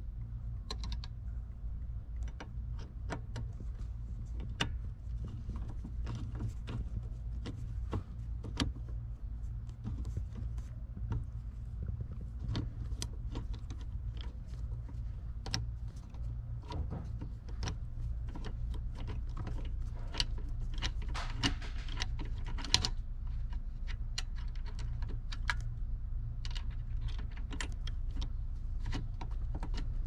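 Socket wrench clicking irregularly as it turns a bolt on the steering-column gear shift lever bracket, many small metallic clicks over a steady low hum.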